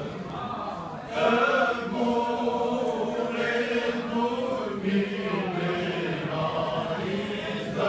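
Alentejan men's choir singing cante alentejano: slow, unaccompanied group chant in long held notes, louder from about a second in.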